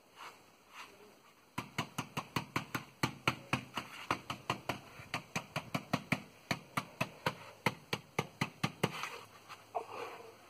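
Gloved hands tapping and patting a foot-shaped cement stepping stone to bed it into wet mortar. The taps come quick and sharp, about five a second, starting about a second and a half in and stopping about nine seconds in.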